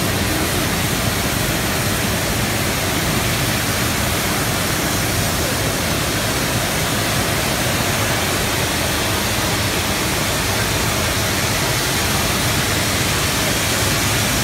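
Steady industrial noise of a working steel mill's casting floor: an even, rushing roar with no distinct knocks or changes.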